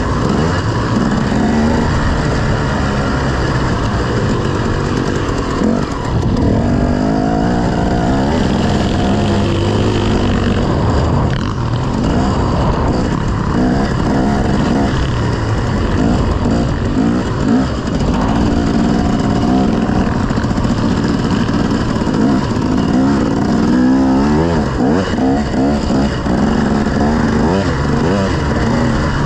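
Several motocross bikes racing, their engines revving up and down and shifting through the gears, the pitch rising and falling throughout.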